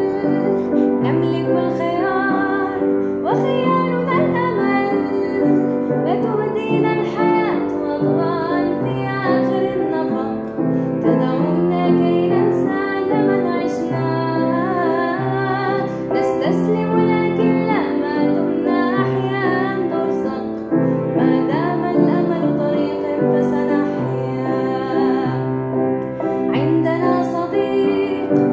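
A woman singing an Arabic song while accompanying herself on piano with steady chords.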